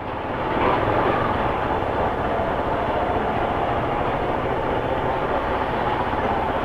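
Motorcycle running steadily while being ridden, with wind rushing over the microphone.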